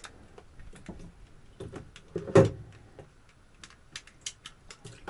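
Scattered clicks and knocks from water filter parts being handled, with one louder thump about two and a half seconds in and a quick run of clicks near the end.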